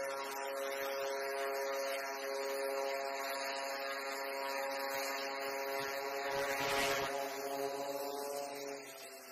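Several MV-22 Osprey tiltrotors flying low, a steady buzzing drone with an unchanging pitch. A rushing noise swells to the loudest point about seven seconds in as they pass overhead, then the sound fades away in the last second.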